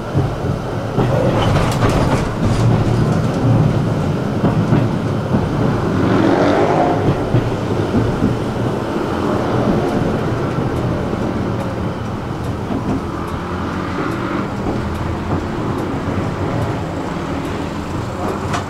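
Tram running, heard from inside the car: a steady rumble of wheels on rails and motor hum, with a few knocks in the first seconds, easing off slightly near the end.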